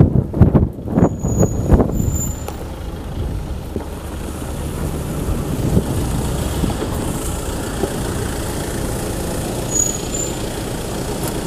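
Motor vehicle engine and road traffic, mostly a steady low rumble, with a few irregular low thumps in the first two seconds.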